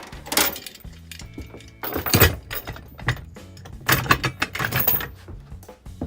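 Steel floor jack cross beam being fitted onto a floor jack: a run of metal clanks, knocks and rattles, the loudest about two seconds in and again about four seconds in, over background music.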